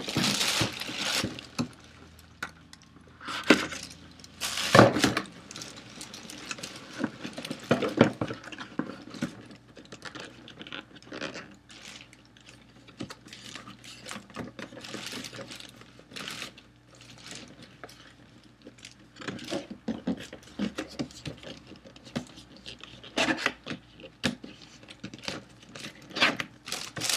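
Hands handling a boxed toy and sliding its cardboard outer sleeve off: irregular scrapes, rustles and taps of cardboard, with a few sharper knocks, the loudest in the first few seconds and near the end.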